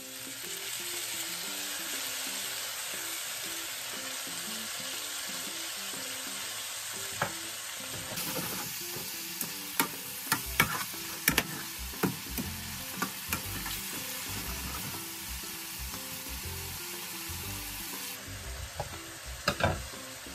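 Pork belly sizzling in a frying pan just after soy sauce is poured in. A utensil knocks and scrapes against the pan as the pieces are stirred, in a run of clicks about halfway through and a couple more near the end.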